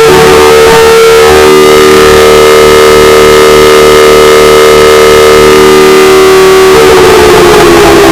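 Very loud emergency-alert siren with several tones sounding together, holding one pitch, then sliding down in pitch near the end.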